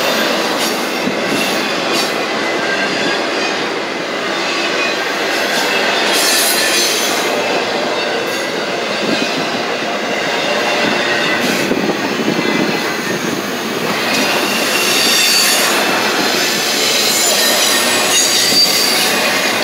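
Intermodal freight train's trailer flatcars and double-stack container well cars rolling past close by: steady rumble of steel wheels on rail, with high thin wheel squeal and a few short knocks.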